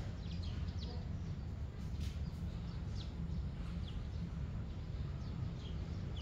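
Small birds giving short, scattered chirps over a steady low background rumble.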